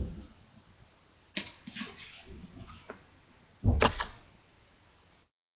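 Books being handled: a few soft knocks and rustles, with a louder thump just under four seconds in.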